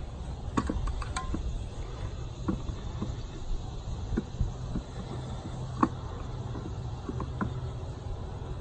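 Rope being worked around a wooden roping practice dummy: scattered light clicks and knocks, the sharpest a little before six seconds in, over a steady low rumble.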